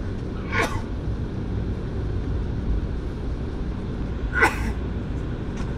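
Steady low rumble of an airliner's cabin as the jet taxis after landing. Two brief sharp noises break through it, about half a second in and about four and a half seconds in; the second is the louder.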